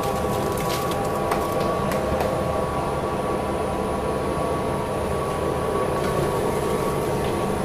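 Plastic film squeezing (dewatering) machine running steadily as it presses water out of wet shredded PP woven bag material, a constant mechanical hum with several steady tones. A few light clicks come in the first couple of seconds.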